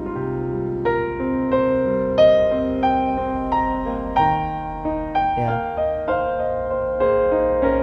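Background piano music: a slow melody of single notes over held bass notes.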